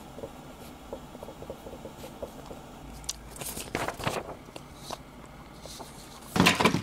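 Paper being handled: faint scratching and small ticks, a few rustles a few seconds in, and a louder burst of rustling near the end.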